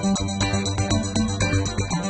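Background music with a steady electronic beat and bass line.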